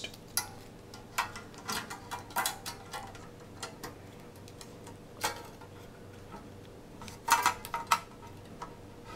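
Thin metal motherboard I/O shield clicking and clattering against the PC case's rear cutout as it is worked into place by hand: scattered light metallic taps and clicks, with a quick run of them near the end.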